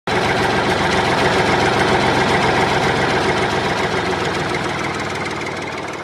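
An engine running steadily, starting abruptly and slowly fading toward the end.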